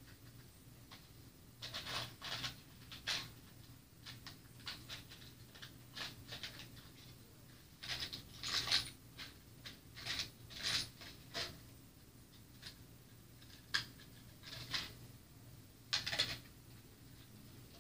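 Scattered short rustles and light clicks as dolls and doll clothes are handled among blankets, in irregular bursts with a busier stretch around eight to eleven seconds in.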